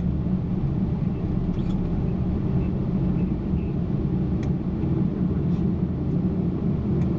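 Steady low rumble of airflow and engine noise on a Boeing 777-300ER flight deck during descent, with two faint clicks about four and seven seconds in.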